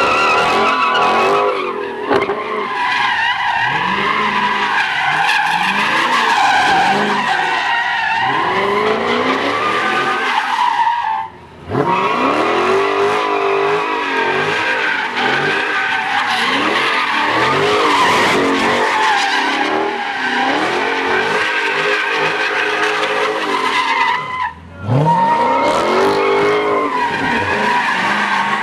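Dodge Charger doing donuts: the engine revs up and down over and over while the rear tyres screech continuously as they spin on the asphalt. The sound breaks off briefly twice, about eleven and twenty-five seconds in.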